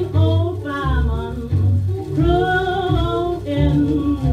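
A 1938 small-band jazz blues recording playing from a 78 rpm shellac record: a wavering lead melody over a bass line that changes note about every half second. The sound has no treble, typical of an old 78.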